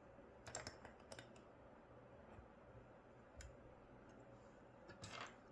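A few faint, sharp metallic clicks from a Schlage KIK lock cylinder and its key being handled: a small cluster about half a second in, two single clicks, and another cluster near the end.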